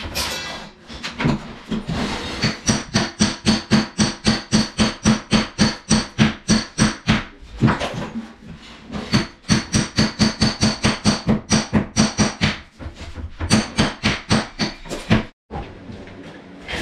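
Hammer beating on a steel chisel held against ceramic wall tile to knock the tile off, about four blows a second, each with a metallic ring. The blows come in runs with brief pauses.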